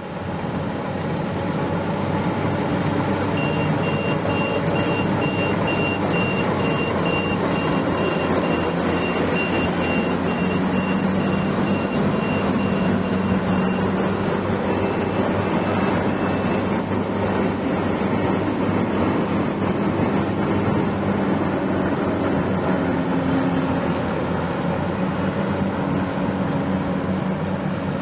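Yanmar combine harvester running steadily, its engine and machinery making a continuous loud drone. A high-pitched warning beep repeats about one and a half times a second from a few seconds in until past the middle. Sharp clicks come through in the second half.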